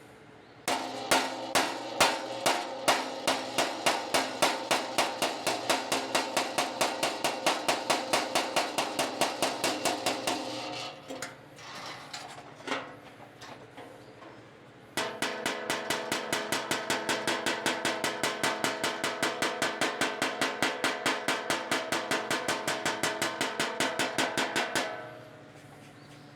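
Body hammer striking the sheet-steel fender of a 2023 Hyundai Palisade over a dolly, working out a dent: rapid, evenly spaced ringing blows, about three to four a second. It comes in two long runs, with a pause of a few seconds midway.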